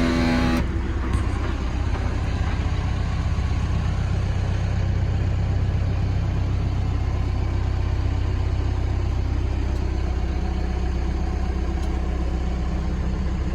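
Case 580 Super N backhoe loader's diesel engine idling steadily, heard from inside the cab. A pitched hum is running at the start and cuts off about half a second in.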